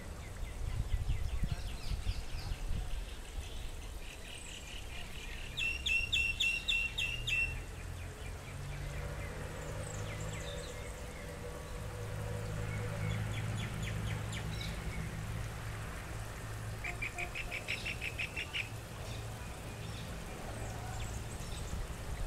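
A songbird giving short trills of rapidly repeated high notes, four times, the second trill the loudest. A low steady hum lies underneath.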